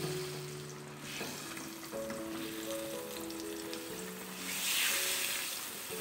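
Chicken frying in oil in a black pan, a steady sizzle that swells louder about four and a half seconds in as the pieces are turned with a fork, over soft background music.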